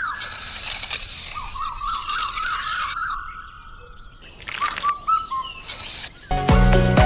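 Birds chirping in short warbling calls over a steady hiss, with music starting near the end.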